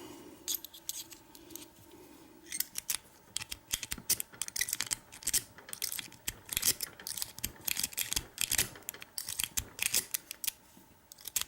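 Lock pick raking a Kwikset-keyway pin tumbler lock: a rapid, irregular run of small metallic clicks and scrapes as the rake works the pins, starting about two and a half seconds in.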